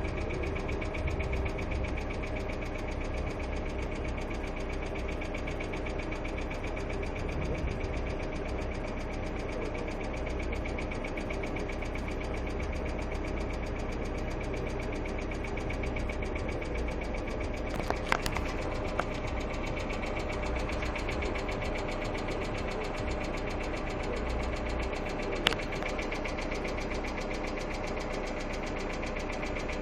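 Hyundai Accent II engine idling steadily with a rapid, even ticking from the valvetrain: knocking hydraulic lifters. A couple of sharper clicks stand out, one a little past the middle and one later on.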